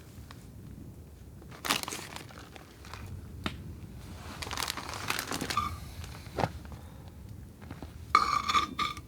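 Camp-cooking handling sounds: crinkling, with scattered clinks and knocks, and a short squeak near the end.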